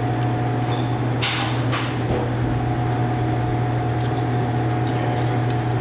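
A steady low mechanical hum throughout, with a lemon being squeezed by hand through a mesh strainer into a stainless steel bowl: two brief squirts of juice a little over a second in.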